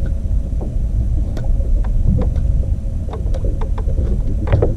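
Steady low rumble of a boat on open water, wind and water noise on the microphone, with scattered light clicks and knocks that come thicker near the end.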